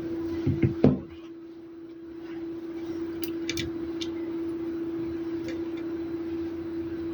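A steady hum on one tone, with a few light knocks just under a second in and faint clicks a few seconds later.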